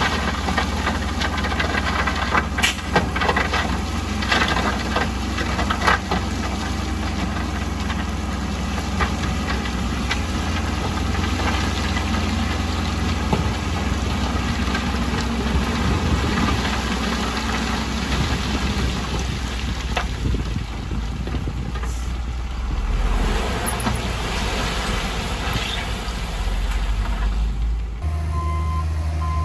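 Heavy diesel earthmoving machines, a wheel loader and a dump truck, running under load with a deep, steady engine rumble. Sharp metallic clanks and knocks come thick in the first several seconds, then thin out. Near the end a repeating beep begins.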